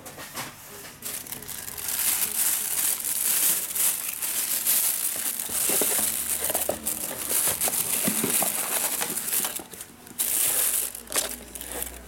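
Plastic wrapping crinkling as a rechargeable LED work light is worked into its cardboard box, with the box's card rubbing under the hands. The crinkling runs for most of the stretch, stops briefly near the end, then comes again for a moment.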